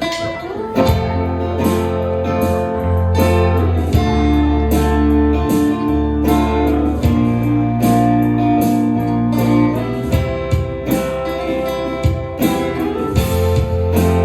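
Band playing with electric guitars over bass and drums: held guitar chords, steady bass notes and regular drum hits, starting abruptly right at the beginning.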